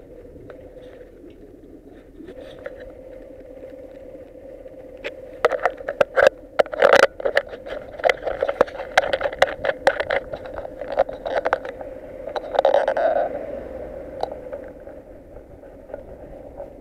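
Knocks, taps and scrapes from a helmet's chin-mounted action camera being handled, coming thick and fast from about five seconds in to about thirteen, over a steady faint hum.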